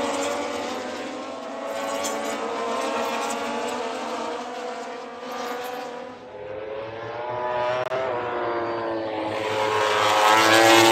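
Racing motorcycles passing on the circuit at high revs. Several engine notes slide down in pitch and climb again, and the loudest pass comes near the end.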